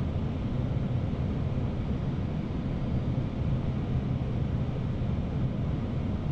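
Steady in-flight flight-deck noise of an Airbus A319 on final approach: a constant rush of air with a low hum underneath.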